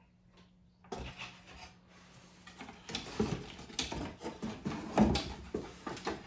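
Rummaging in a cardboard box: cardboard rustling and laser-cut wooden clip frames knocking against each other as they are lifted out, with several sharp clacks, the loudest about five seconds in.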